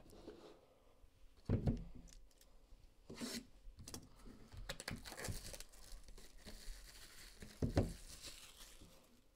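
Plastic wrapping being torn and crinkled off a sealed trading-card box, with two dull knocks as the box is handled and set on the table, one early and one near the end.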